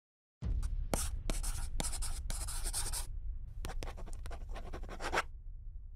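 Half a second of silence, then scratchy rustling in a run of short bursts over a steady low rumble, thinning out about five seconds in.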